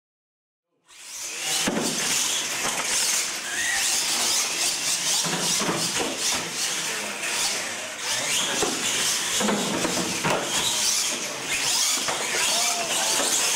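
Radio-controlled monster trucks racing on a concrete floor, starting about a second in: electric motors whining and rising in pitch, with tyres scrubbing and squealing.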